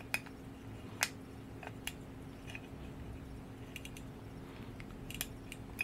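Key winding a 1918 William Ehrhardt silver English fusee lever pocket watch: a few light, irregular clicks as the key is fitted on the winding square and turned.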